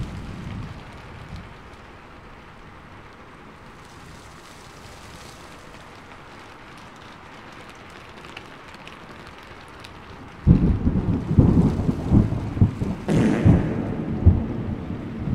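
Steady rain. About ten seconds in, a sudden loud low rumble with uneven pulses breaks in and carries on, flaring brighter a few seconds later.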